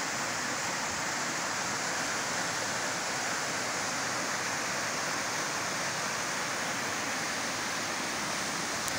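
Fast-flowing canal water rushing and churning along a concrete bank, a steady rushing noise with no change in level.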